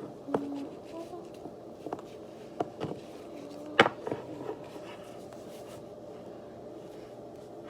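A few light taps and clicks of small objects being handled on a table, the loudest one about four seconds in, over a steady low hum.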